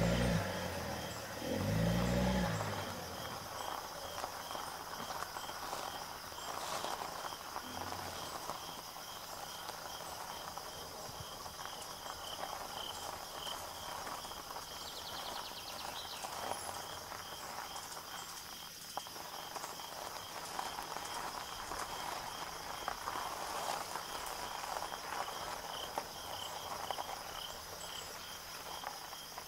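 Forest ambience of insects chirping: a short high pulse repeating about twice a second over a steady high hiss. The last notes of a music track die away in the first two seconds.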